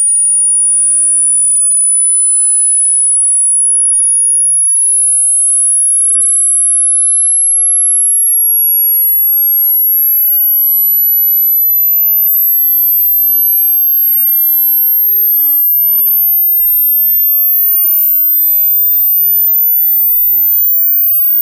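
A pure sine test tone, very high-pitched, climbing slowly and steadily higher: the upper end of a hearing-test sweep across the range of human hearing, where many listeners start to lose it.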